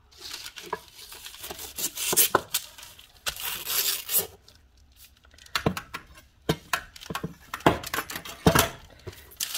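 A sheet of parchment paper rustling and tearing as it is pulled against a knife edge. After about four seconds the sound turns into a series of separate sharp crackles and taps as the paper is handled on the wooden board.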